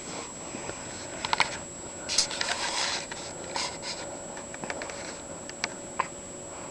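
A few sharp clicks and light rubbing noises, with a short breathy burst a little over two seconds in.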